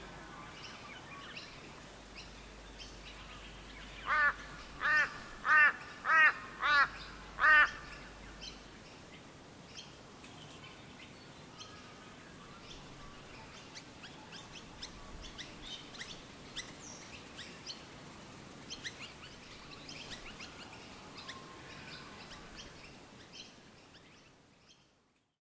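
Bird ambience with many small chirps throughout. About four seconds in, one bird gives six loud, harsh calls in quick succession, roughly one every two-thirds of a second. The sound fades out near the end.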